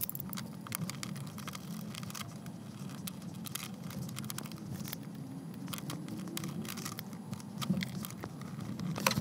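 Many small clicks, taps and scrapes of an opened USB audio interface being worked on by hand: plastic parts dropped into a clear plastic tray, small screws, and a screwdriver on the metal chassis, over a low steady hum.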